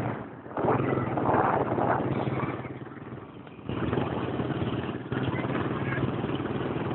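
Motorcycle engine running steadily, dropping off a little in the middle and picking up again about four seconds in.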